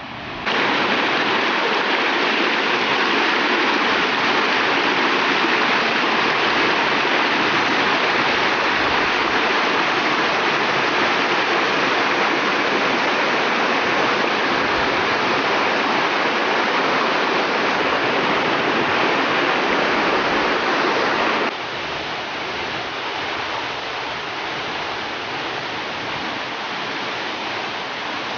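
Rushing water of a hill river and waterfall, a steady loud rush. It drops abruptly to a lower but still steady level about three-quarters of the way through.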